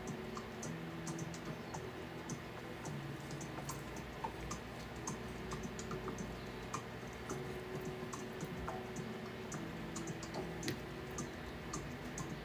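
Irregular light clicks and ticks, a few a second, over faint background music with held low notes.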